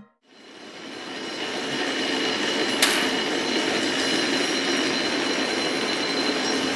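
Ikoma Cable funicular car running on its rails: a steady rumbling noise with a high, thin whine of several steady tones, growing over the first two seconds and then holding level. A single sharp click about three seconds in.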